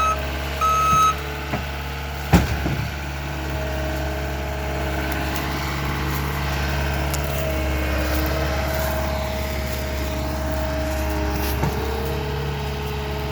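Skid steer engine running steadily, with the last beep of its reversing alarm at the very start and a sharp clank about two seconds in.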